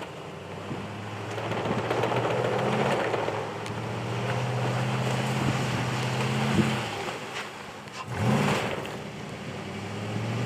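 Nissan Titan pickup's V8 engine running at low, steady revs while driving, over a steady hiss. The engine note drops about seven seconds in, then revs up briefly about a second later and again near the end.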